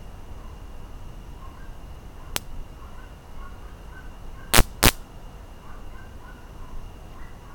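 Electric UV bug zapper snapping as insects strike its charged grid: one sharp crack about two seconds in, then two louder cracks in quick succession about four and a half seconds in.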